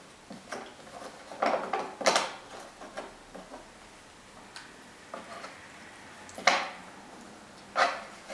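Jigsaw puzzle pieces being picked up, slid and set down on a tabletop and puzzle tray: scattered light taps and knocks, with sharper knocks about a second and a half and two seconds in and twice more near the end.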